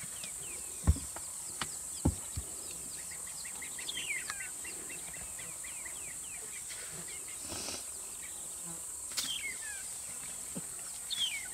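Steady, high-pitched drone of insects in the bush, with many quick falling chirps over it. A few sharp knocks come in the first two to three seconds.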